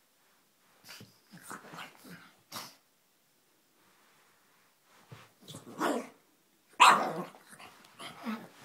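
Pug barking in short bursts. There is a pause in the middle, and the loudest bark comes about seven seconds in.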